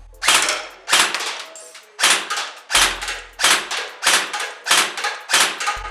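Krytac Kriss Vector airsoft electric gun firing in two-round burst mode: about eight short bursts in quick succession, one every half second or so.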